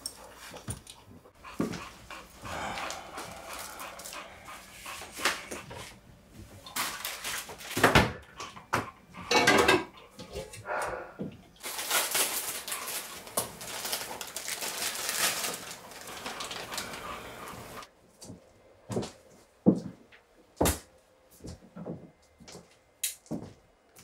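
A dog whimpering and panting, followed by close handling noises with a long stretch of rustling, then scattered knocks and clicks near the end.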